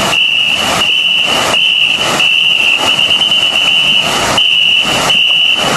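Ghe ngo crew's wooden paddles splashing in unison, about three strokes every two seconds, under a shrill whistle held on one high note and broken off briefly now and then to pace the stroke.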